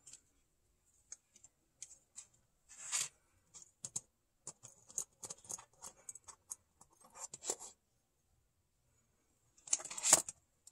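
Kittens' paws and claws scratching and tapping on a hard booth floor and among cardboard coin flips, plastic coin holders and paper: scattered light scratches, rustles and clicks, with a louder scrabble about three seconds in and another near the end.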